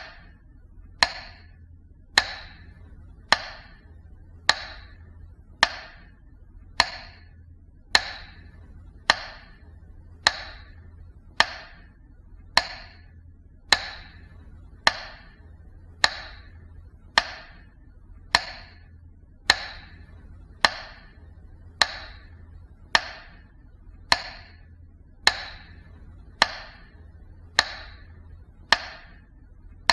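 Evenly spaced sharp ticks, each with a short ringing tail, repeating a little slower than once a second over a faint low hum.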